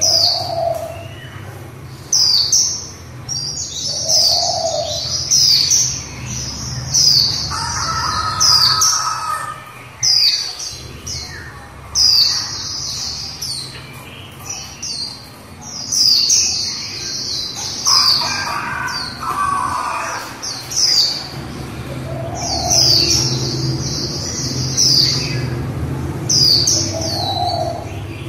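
Female white-eye (vành khuyên) singing its 'líu' song: high thin chirping notes in quick falling clusters, repeated every second or two.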